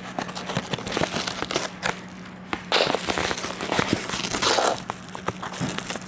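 Scissors snipping into a padded envelope and the envelope crinkling and tearing as it is opened: irregular clicks and snaps with a couple of longer rustles.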